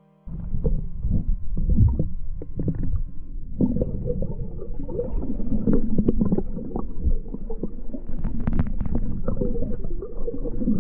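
Underwater ambience: a low rumble with scattered pops and gurgles, starting just after the music ends.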